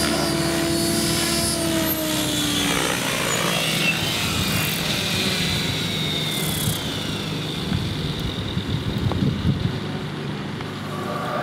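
Electric-converted Rave ENV 90 radio-controlled helicopter in flight: the spinning rotor blades and the electric motor's whine, with the pitch dropping a few seconds in.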